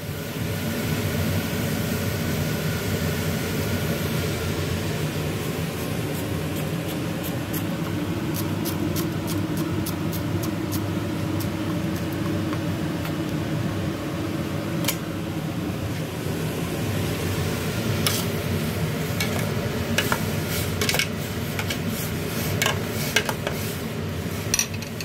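Food sizzling in a pan as it is stir-fried, with a spatula clicking against the pan; the clicks come more often in the last several seconds.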